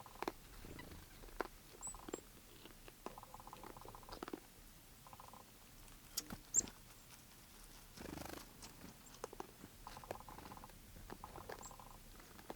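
Faint scattered clicks and crunches, as of an animal feeding, with a few brief high chirps.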